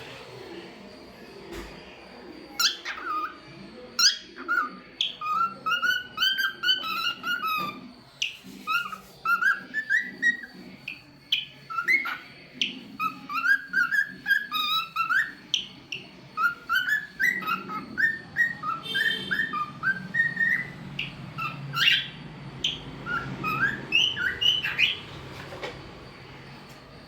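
Cockatiel whistling and chirping: a long run of short, quick whistled notes that bend up and down, with a few sharp calls mixed in, starting about two seconds in and stopping near the end.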